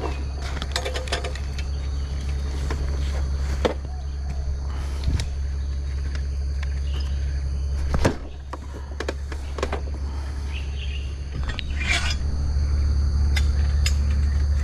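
A small motorcycle's engine runs low and steady, dipping briefly about eight seconds in, with scattered knocks and rattles. Insects shrill steadily underneath.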